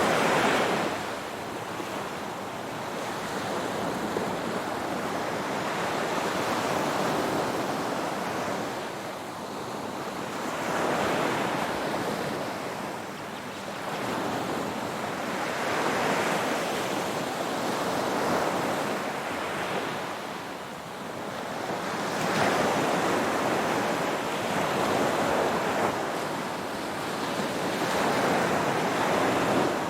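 Ocean waves breaking and washing on the shore in a continuous surf, swelling and easing every few seconds.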